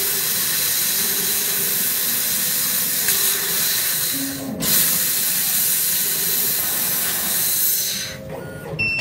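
Laser cutting machine's assist gas hissing steadily through the cutting nozzle as it cuts a pattern into a round metal tube turned by a rotary chuck. The hiss breaks off for a moment about halfway, with a short falling low tone just before, then resumes and stops near the end.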